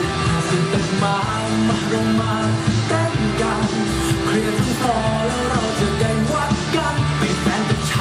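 A pop song with a sung vocal, played loud over stage loudspeakers as dance music.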